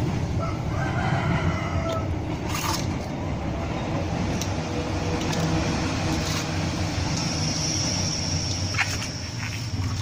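A rooster crowing once near the start, over a steady low hum. A thin high steady tone comes in during the last few seconds.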